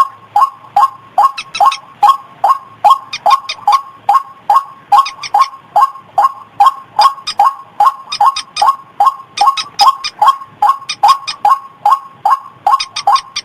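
White-breasted waterhen calling, a recorded lure call: one call repeated evenly about three times a second, with extra sharp clicky notes in some stretches.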